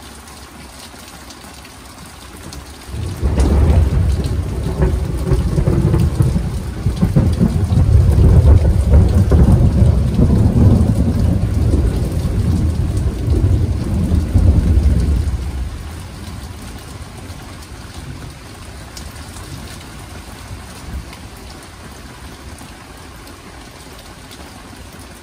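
Steady rain falling, with a long low rumble of thunder that comes in sharply about three seconds in, rolls on for some twelve seconds and dies away, leaving the rain.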